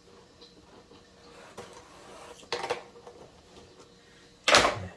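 A few short clatters of hard objects being handled on a worktop, the loudest near the end.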